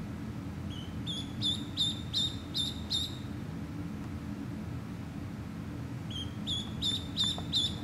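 Ducklings peeping: two runs of quick, high-pitched peeps, about three a second, one starting about a second in and another near the end.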